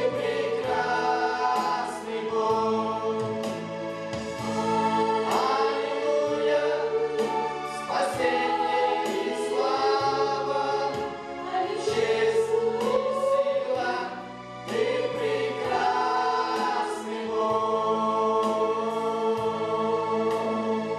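Mixed choir of young men and women singing a Russian-language Christian worship song over sustained accompaniment chords.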